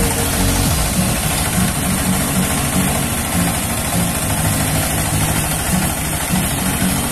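Rice milling machine running steadily: an even, engine-like drone with a pulsing low end under a constant rushing haze.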